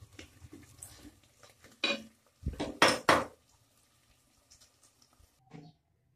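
Wooden spoon scraping and knocking against an aluminium cooking pot, with a few sharp knocks about two to three seconds in.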